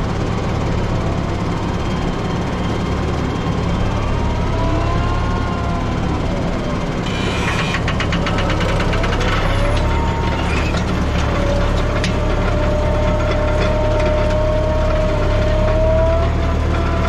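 Tractor engine running steadily while working a field, with a whining tone that glides up and down above it. About seven seconds in, a few seconds of rapid rattling clatter join it.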